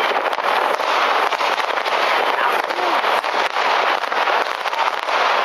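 Many fireworks and firecrackers going off at once across a city: a constant stream of sharp cracks and pops over a dense, unbroken din.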